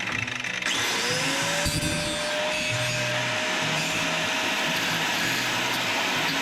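A power tool's motor spinning up with a rising whine about a second in, then running steadily over a constant noisy hiss.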